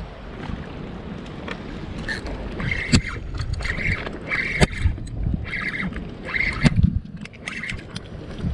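Wind and water rumbling at the microphone, with a short high chirp repeating every half second to a second from about two seconds in and a few sharp knocks.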